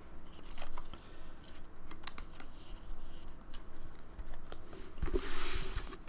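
Pokémon trading cards being handled: a run of light clicks and snaps as the cards are flipped through, then a louder papery swish about five seconds in as the stack is moved and set down.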